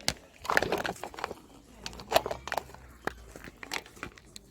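Plastic packaging being handled for photocard packing, crinkling and rustling with scattered sharp clicks and taps; the densest crinkling comes about half a second in.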